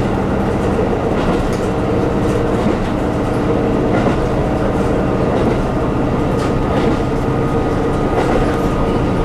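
KiHa 150 diesel railcar running along the track, heard from inside behind the cab: a steady diesel engine and wheel-on-rail rumble with a few faint clicks from the wheels.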